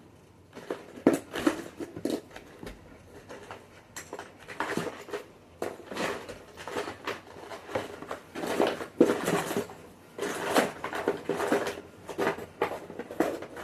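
Small toys being rummaged through and handled: an irregular light clatter and rustle as a pile of little poppet toy rings is sorted by hand.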